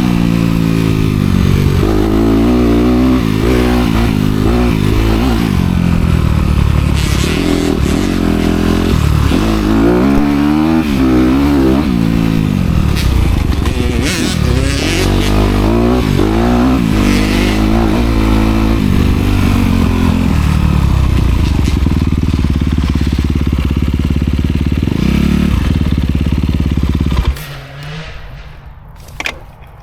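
Honda CRF250R dirt bike's single-cylinder four-stroke engine with dual exhaust pipes, revving up and down over and over as it is ridden hard through the gears. Near the end the engine sound drops off suddenly.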